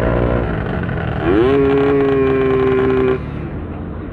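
Motorcycle engines running on the road. About a second in, a louder pitched note rises and then holds steady for about two seconds before cutting off.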